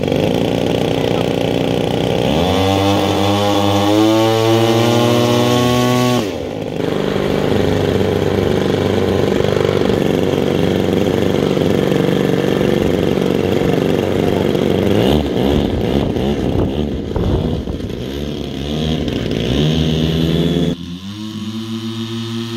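Twin 38 cc engines of a large-scale RC OV-10 Bronco model running, revved up and down a few times, then running more steadily.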